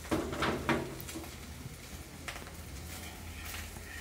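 Metal kitchen tongs knocking and scraping against a small nonstick frying pan while a fried egg is picked up, several sharp clinks in the first second and a few lighter taps after. A faint steady sizzle of frying oil runs underneath.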